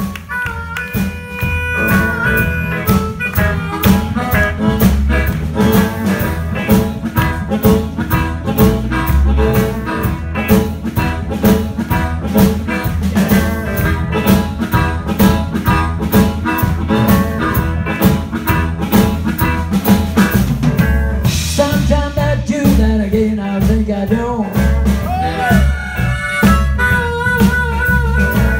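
Live blues band playing: a harmonica blown into a cupped vocal microphone over a drum kit with a steady beat, electric guitar and upright bass.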